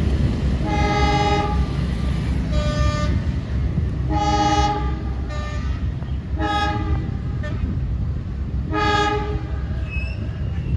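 Train horn sounding a series of about six blasts, some long and some short, over the steady low rumble of a passing train.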